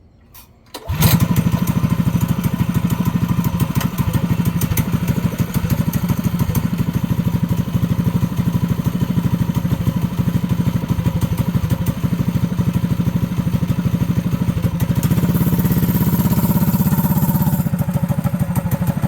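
Predator 212cc single-cylinder four-stroke engine on a mini bike starting up about a second in and then running steadily, with a louder stretch a few seconds before the end as it is given some throttle.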